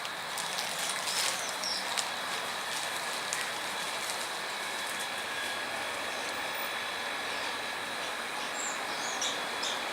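Steady outdoor background hiss with a few sharp clicks in the first two seconds, and short high bird chirps about a second and a half in and again near the end.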